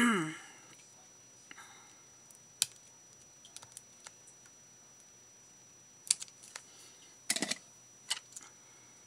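Small scissors snipping a plastic burr off a bead on a beaded pokie tool: a few scattered sharp clicks and snips, with a short cluster of them about seven seconds in.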